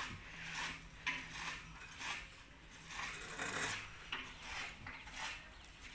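Hand-cranked chaff cutter chopping fodder: a regular clacking of blade and gear strokes, about two a second.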